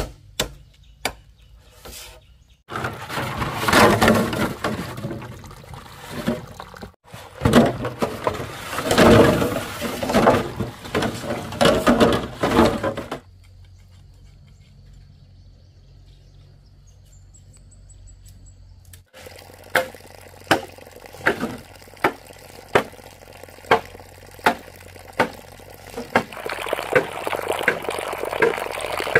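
Water splashing in two long spells, then a steady series of sharp knocks a little over one a second, with splashing water again near the end.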